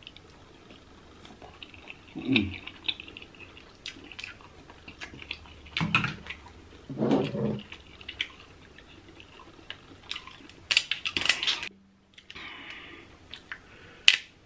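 Close-miked eating of king crab legs: the shell cracking and snapping in scattered clicks, with chewing and slurping of the meat and a dense crackly burst about 11 seconds in.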